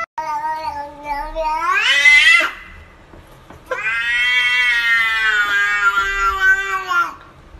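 Domestic cat giving two long, drawn-out meows. The first bends sharply upward in pitch at its end. The second is held for about three seconds and then slides down.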